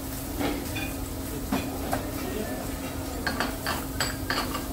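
Scattered clinks and knocks of dishes and cutlery, several in quick succession near the end, over a steady low hum.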